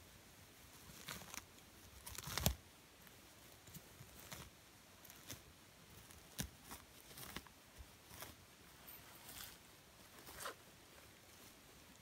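Moss being torn up by hand and the soil and needle litter under it scraped with the fingers: irregular soft rustles, tearing and crackles. The loudest comes about two and a half seconds in.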